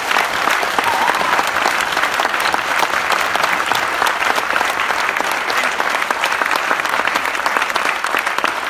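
A large audience applauding, many hands clapping steadily and loudly.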